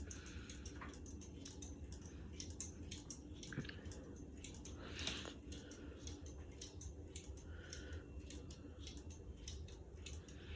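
Faint small clicks and light rattles of handling, over a low steady hum.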